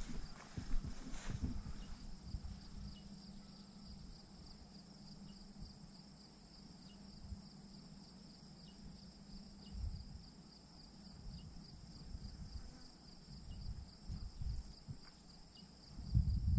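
Steady high chorus of crickets and other insects trilling in the grass, one part a fast pulsing trill, another a continuous high hiss. Irregular low thumps and rumbles on the microphone come and go over it, loudest about ten seconds in and near the end.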